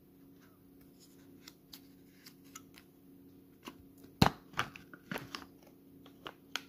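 Foil lid being peeled off a plastic Müller Riso milk rice pot: light crinkles and ticks, then a run of sharp crackles and snaps about four seconds in as the lid pulls away from the rim.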